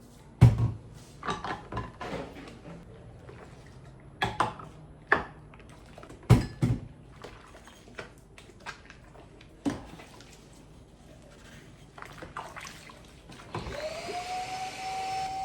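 Scattered knocks and clatter of household objects being handled, then near the end an electric appliance motor starts, its hum rising in pitch and settling to a steady tone with a hiss above it.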